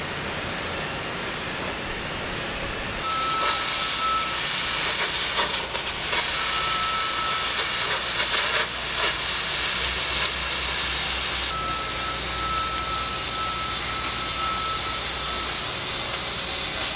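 Steel-cutting torch hissing loudly and steadily as it cuts through ship's hull plate, starting suddenly about three seconds in. A thin high steady tone sounds on and off over the hiss. Before the torch starts there is only a quieter steady background.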